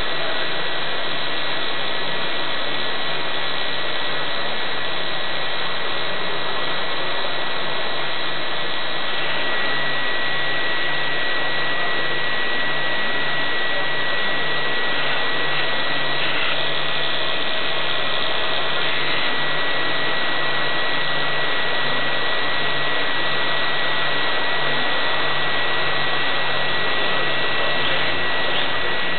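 Steady whirring of a radio-controlled advertising blimp's propeller motors, heard from the camera on board, with a constant high whine over a steady rush of noise.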